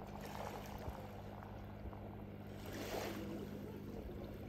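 Steady wind and sea-surf noise, fairly quiet and even, with a low steady hum underneath.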